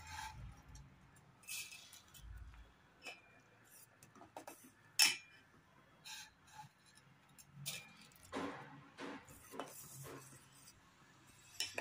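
Steel spoon clinking and scraping against a stainless-steel pot of milk as it is stirred, with a few sharp clinks among quieter scrapes.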